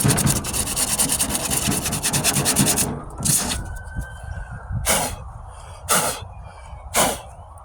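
Sandpaper rubbing over cured Bondo body filler on a steel truck tailgate: about three seconds of rapid back-and-forth hand-sanding strokes, then four slower single strokes with pauses between.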